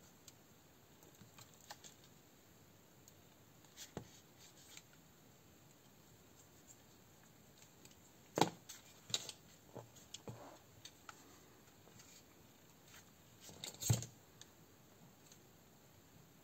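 Small handling noises from the plastic frame and parts of a Tokyo Marui M9 electric airsoft pistol being worked on by hand: scattered light clicks and taps, with two sharper knocks about eight and fourteen seconds in.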